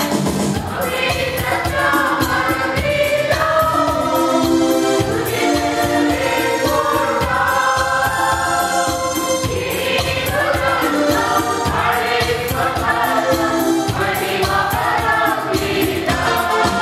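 A mixed choir of men and women singing together.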